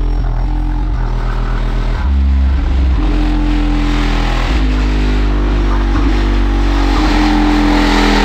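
Bass-heavy music played loud on a car audio system, the deep bass coming from an Alphard Machete MS-15D4 15-inch subwoofer in a sealed 70-litre box driven by a Calcell monoblock amplifier. Long held bass notes change pitch every second or two.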